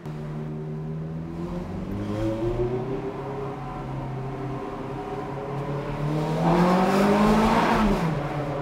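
Ferrari F430's 4.3-litre V8 with a straight-pipe exhaust, heard from inside the cabin while driving. It runs at low revs with small rises and dips in pitch, then about six seconds in it revs up hard and loud for two seconds before the pitch drops away near the end.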